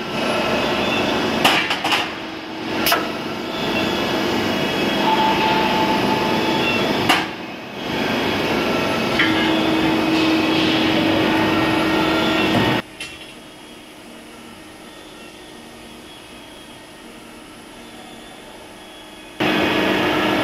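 Steel wheel rim production machinery running: a steady mechanical din with sharp metallic clanks near the start, and a steady motor hum for a few seconds about halfway through. About two-thirds of the way in the noise drops abruptly to a much quieter hum, then jumps back to full level shortly before the end.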